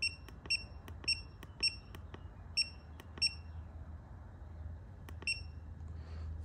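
Handheld BossComm IFIX435 OBD2 scan tool beeping at each key press as its buttons are pushed to back out of the menus: about seven short, high beeps, each with a small button click. Most come in the first three and a half seconds and one more about five seconds in.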